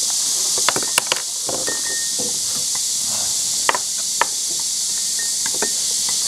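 Steady high hiss, with scattered small clicks and crinkles of plastic gloves as an egg is peeled and handled over a ceramic bowl.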